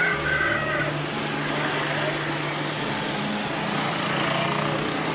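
Motor scooter engines running past on a busy street. A live chicken squawks a few times in the first second.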